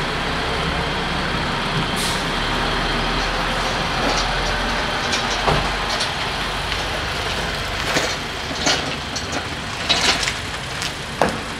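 Road traffic: a car drives past close by with a low engine and tyre rumble building to about halfway through, and a second car passes near the end, over steady vehicle noise with a few light knocks and clicks.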